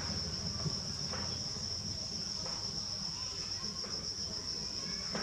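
Steady high-pitched insect drone of crickets or cicadas, one unbroken shrill tone, over a low steady rumble.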